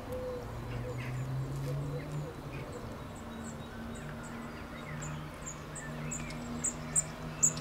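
Small bird chirping in a quick run of short, high notes, about three a second, over a faint steady low hum.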